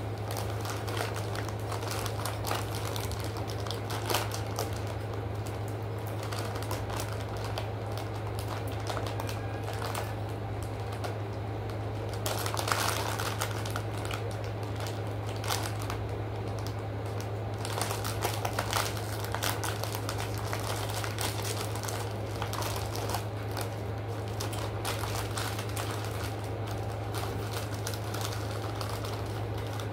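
Food packaging crinkling and rustling as a paper-and-plastic wrapper bag is handled, with scattered crackles that are busiest about halfway through, over a steady low hum.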